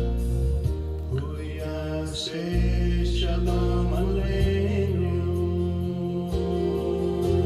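Song from a Shabbat service: a singing voice over held low chords that change every couple of seconds.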